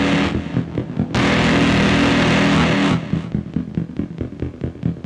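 Homemade 'Bed of Nails' touch-controlled noise circuit, built with screws as the contacts, giving a harsh distorted buzz that breaks into stuttering, crackly pulses. Dense buzz for the first moment and again from about a second in to three seconds, with rapid irregular clicking before and after.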